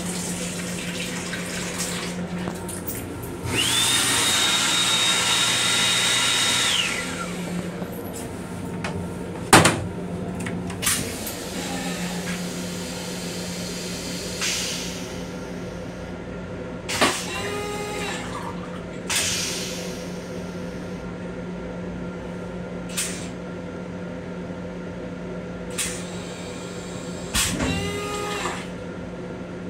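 A sensor faucet runs in an M7 railcar's restroom over the car's steady low hum. About three and a half seconds in, the sink unit's hand dryer starts with a high whine and a rush of air and runs for about three seconds. A sharp knock comes near ten seconds, and two short squeals sound later.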